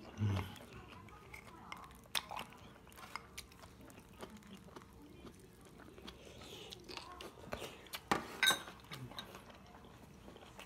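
Close eating sounds: chewing, with scattered light clicks and knocks of chopsticks and a spoon against ceramic bowls and dishes. A couple of louder knocks come about eight seconds in.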